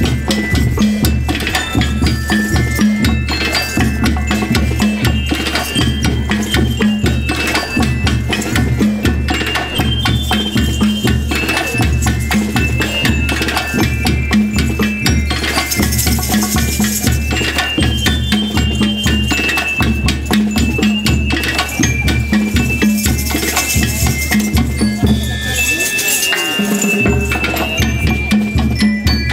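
School rhythm band playing live: drums keep up a fast, steady beat under the bright ringing notes of bell lyres. About 26 s in, the low drums drop out for about a second before the beat resumes.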